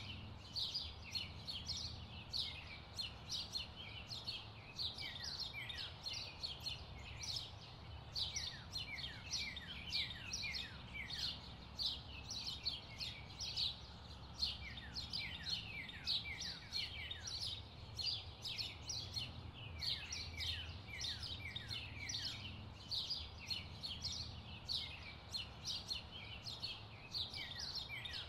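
Birds chirping: a dense, continuous chorus of short, quick calls, each sweeping down in pitch, over a low steady hum.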